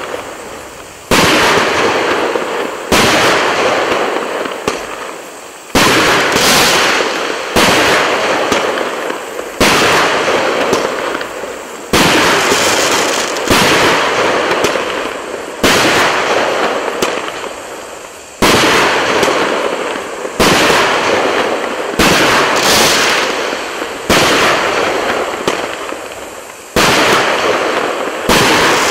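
A 64-shot, 1.25-inch firework cake (battery) firing in sequence: a loud bang every one to two seconds, each trailing off in a fading crackle before the next shot.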